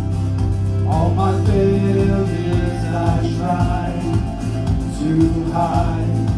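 Worship band playing a song with a steady beat and sustained bass notes, a voice singing over it.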